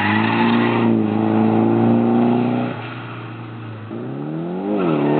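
Nissan 240SX drift car's engine held at high revs through a slide, dropping off a little under three seconds in, then revving up once more and falling again near the end.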